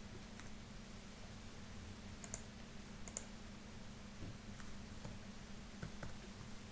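Faint computer keyboard keystrokes: a handful of light, scattered key clicks a second or so apart as a command is typed and corrected, over a low steady hum.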